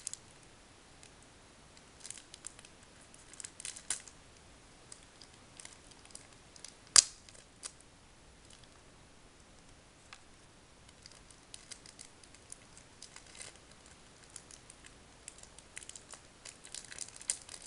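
Someone working at opening a stubborn Pokémon card pack: scattered faint crinkles and clicks of the wrapper being handled, one sharp click about seven seconds in, and denser crinkling near the end as it starts to give.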